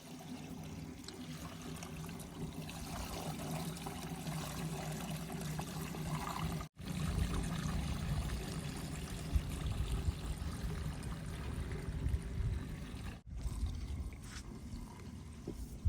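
Heavy machine's engine running steadily under a broad rushing, pouring noise. The sound breaks off abruptly twice, about a third and two-thirds of the way through.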